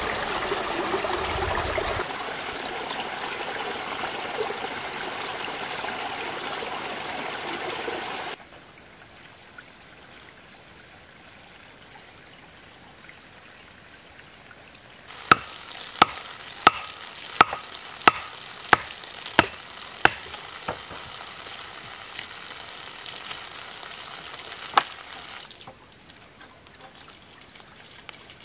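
Flowing water, loud for the first eight seconds and then cut off. After a quiet spell comes a run of about a dozen sharp, evenly spaced knocks, roughly three every two seconds, over a light hiss.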